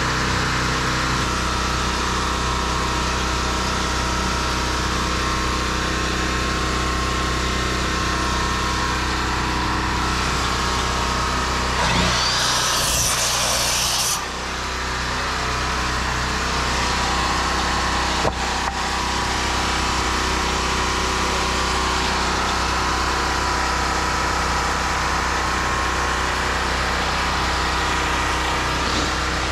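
A small engine running steadily at a constant speed. About twelve seconds in comes a short burst of power-tool noise, lasting about two seconds, and a single knock follows a few seconds later.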